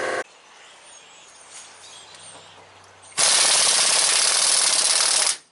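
An air compressor's motor cuts off about a quarter second in. After a lull of about three seconds, a Harbor Freight Earthquake air impact wrench hammers for about two seconds, turning the screw of a U-joint press to force a bearing cup out of the yoke.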